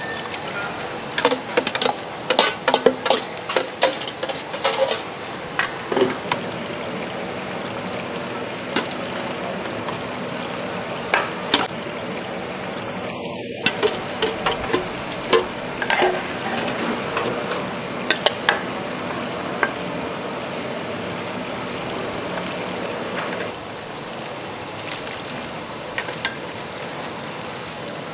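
A large wok of broth simmering with a steady hiss while a long steel ladle clinks and scrapes against the wok and a steel bowl as ingredients are spooned in. There are quick runs of clinks in the first few seconds, then scattered single knocks.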